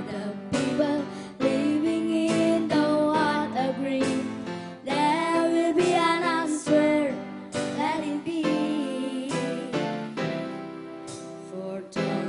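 Live band playing a song: two female vocalists singing over guitar and a drum kit, with drum and cymbal hits throughout.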